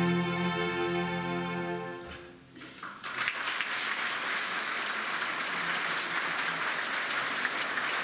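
A string orchestra holds its closing chord, which fades away about two seconds in. About a second later the audience breaks into steady applause.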